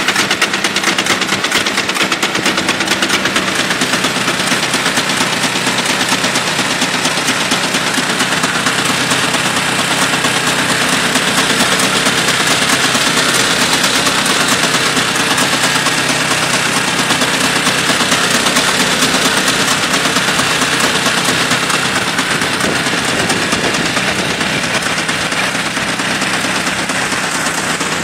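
Engine of a homemade helicopter running steadily under test: a loud, fast, even rattle that holds the same pace throughout.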